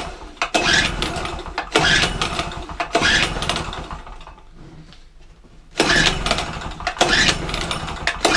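Small two-stroke petrol generator being pull-started: its recoil starter is yanked about six times in two runs of quick pulls with a short pause between, each pull cranking the engine over without it settling into a run.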